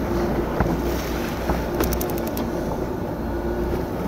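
Fishing boat's engine running with a steady low hum, under wind on the microphone and waves washing against the hull. A brief rapid run of high ticks comes about two seconds in.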